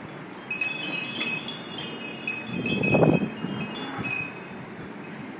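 Several Japanese glass wind chimes (fūrin) tinkling as their paper strips catch the breeze: a cluster of high, ringing glass tones about half a second in, then further strikes that die away after about four seconds. A brief dull, low noise about three seconds in is the loudest moment.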